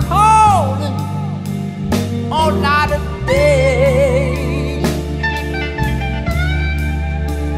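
Band music: a lead line that bends and wavers in pitch over a bass line and a steady drum beat.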